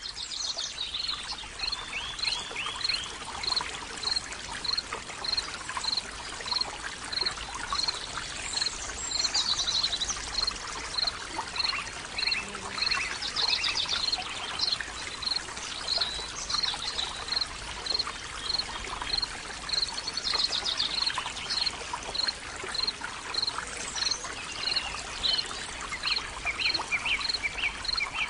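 Water running and splashing steadily, as from a small decorative fountain waterfall, with birdsong chirps and warbles over it and a short high chirp repeating regularly about one and a half times a second.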